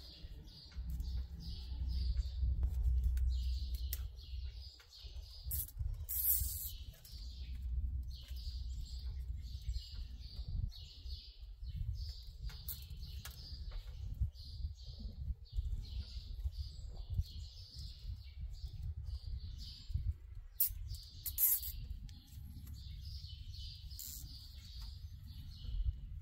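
Wind rumbling on the microphone, with birds chirping over and over and a few sharp clicks, twice standing out.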